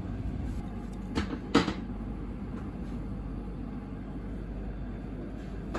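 Restaurant room noise: a steady low hum, with two sharp knocks about a second and a half in and a few faint clicks.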